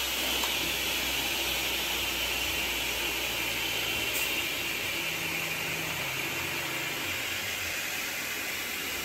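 Graule ZS 170N aluminium circular saw running free after a cut, its motor and spinning blade giving a steady whirring hiss.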